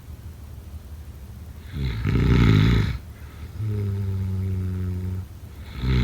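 Snoring in a breathing cycle: a loud, rattling snore about two seconds in, then a steady, low, humming out-breath, and the next rattling snore starting near the end.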